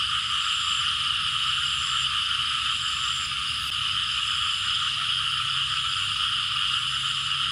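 Dense, steady night chorus of frogs and insects calling without a break, with a faint high chirp repeating about once a second.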